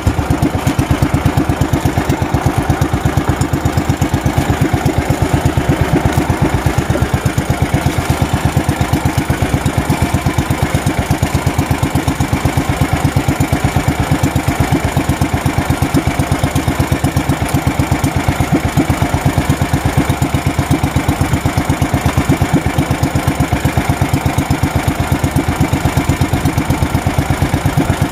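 Small boat engine running steadily with a fast, even thudding beat, as on a motorized outrigger fishing boat.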